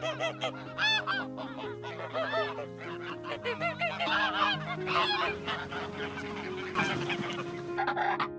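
Domestic geese honking, a rapid run of short calls one after another, over background music with long held notes. The honking stops shortly before the end.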